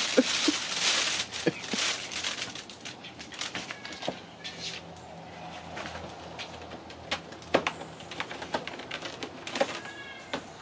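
Ragdoll kittens playing with a crinkly fabric play tunnel and cardboard tubes: a loud crinkling rustle for about the first second, then scattered light knocks, taps and scrabbles of paws on cardboard and carpet. A few faint high chirps come through about four seconds in and again near the end.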